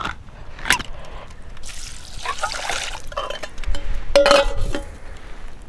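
A hand-held can opener working on a can of chicken broth, liquid being poured, and metal camping cook-set pots being handled. The loudest sound is a clank with a short ring about four seconds in.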